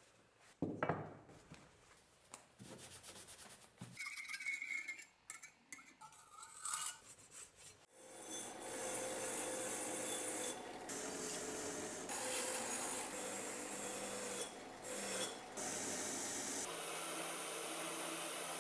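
Cloth rubbing and handling noises at first, then from about eight seconds in a wire wheel brush spinning in a drill press scrubbing the steel cleaver blade, a steady scratching noise as it strips the rust loosened by electrolysis.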